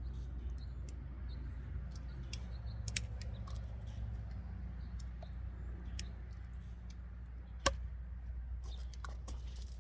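Scattered light clicks and a few sharper snaps, the loudest about three-quarters of the way in, over a steady low hum: a Leatherman Sidekick multitool being tried out in a cutting test.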